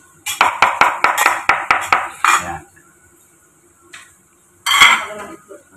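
Kitchen knife knocking rapidly on eggs and a wooden cutting board, about nine sharp taps in two seconds as eggs are cracked with the blade. One more tap comes about four seconds in, then a brief clatter about five seconds in.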